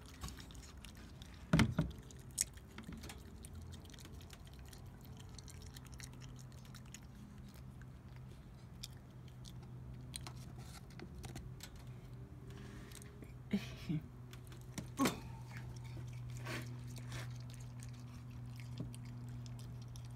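Pet raccoon chewing seedless grapes, with scattered small wet clicks and a few louder sharp knocks, the loudest about a second and a half in and about fifteen seconds in. A steady low hum runs underneath.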